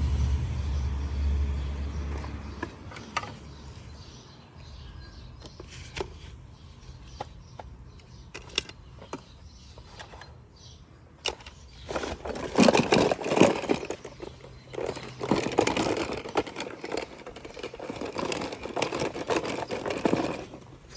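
Toy packaging being handled: a low hum fades out over the first couple of seconds, then a few sharp clicks, and from about twelve seconds in, a long stretch of crinkling and rustling.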